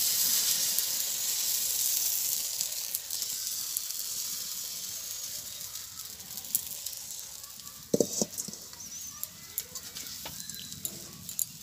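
Biuli-dal pitha batter sizzling in hot oil in an iron kadai. The hiss is loudest at first and slowly dies down, with scattered crackles and a couple of knocks about eight seconds in.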